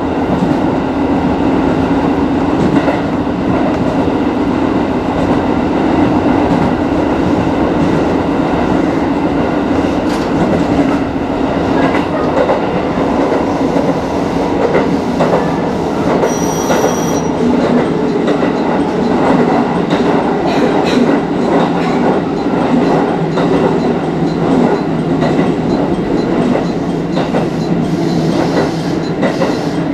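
Nagoya Rinkai Rapid Transit 1000 series electric train running at speed, heard from the driver's cab: steady running noise with a motor hum and wheel clicks over the rails. The wheels squeal as it rounds a curve midway.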